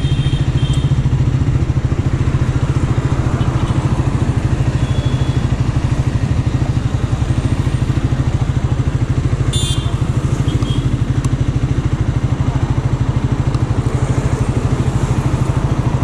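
Triumph Scrambler 400's single-cylinder engine idling steadily, a fast even pulsing thrum, picked up close by a camera mounted on the handlebars.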